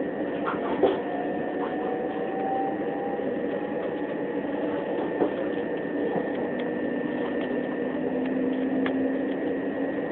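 Interior running noise of a Southeastern Class 375 Electrostar electric multiple unit in motion: a steady rumble with a constant high whine and a slowly rising lower whine. Two sharp knocks come through, about a second in and around five seconds in.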